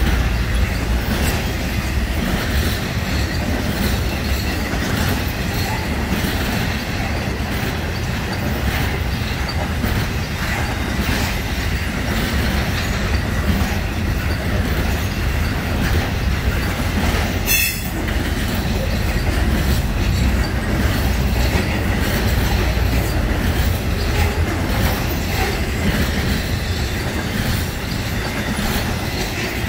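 Intermodal freight train's cars rolling steadily past: a continuous rumble of wheels on the rails with clickety-clack. A single sharp click about two-thirds of the way through.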